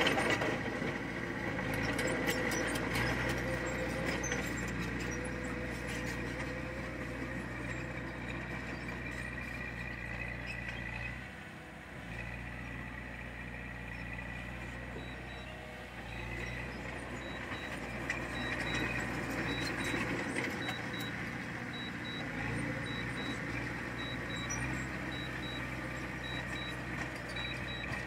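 Heavy diesel earthmoving machinery running steadily, its engine note dropping briefly a few times. Through the second half a faint, high-pitched beep repeats about once a second.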